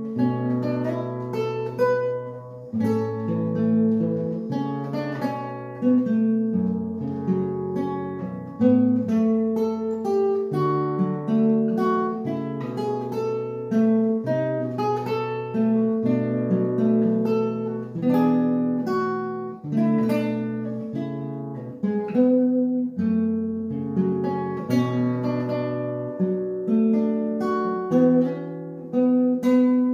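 Solo classical guitar, fingerpicked: plucked melody notes and arpeggios over low bass notes, played at an even pace.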